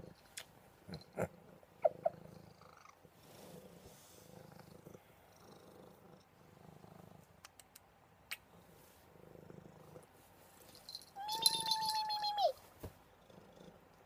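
Tuxedo cat purring softly and steadily, with a few light clicks in the first two seconds. About eleven seconds in, the cat gives one long meow, held level and then dropping in pitch at the end.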